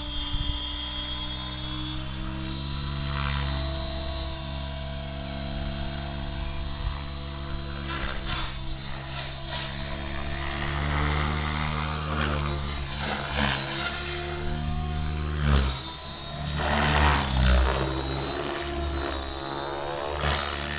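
Radio-controlled model helicopter flying: a steady rotor and drivetrain drone with a thin high whine over it, swelling louder a few times as it manoeuvres, most strongly near the end.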